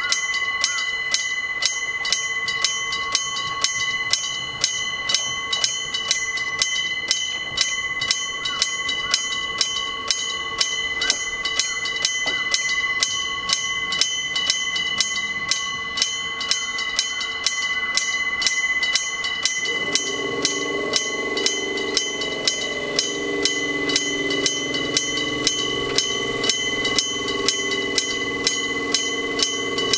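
Electric-gong level crossing bell striking steadily, a little under two strikes a second, each strike ringing on. From about two-thirds in, the running rumble of an approaching train joins in beneath the bell.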